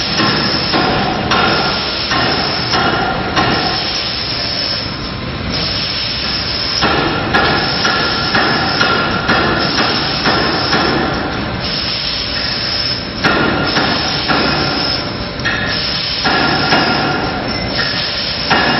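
Rotary premade-pouch filling and sealing machine running: a loud, steady mechanical clatter with hissing, frequent short clicks, and a whine that comes and goes in stretches.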